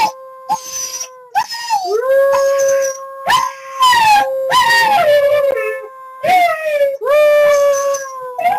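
Siberian husky puppy howling loudly: a string of howls, each rising then falling in pitch, over a long steady held note.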